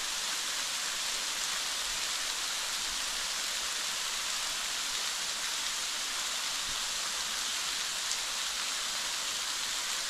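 Waterfall, a thin veil of water pouring down a rock face, making a steady, even hiss.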